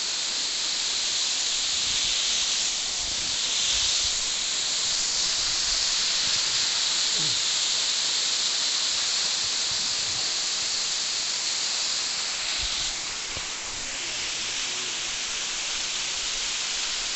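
Waterfall: water cascading in several streams down tiered rock ledges, a steady rushing hiss of falling and splashing water.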